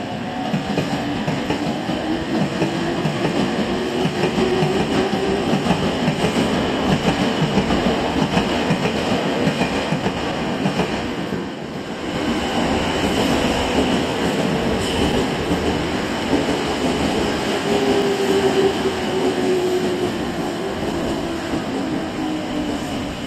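Nankai Koya Line 'Zoom car' electric express trains moving through the station one after the other, wheels clattering over rail joints under a motor hum that slowly rises and falls in pitch. There is a short lull about halfway through, between the two trains.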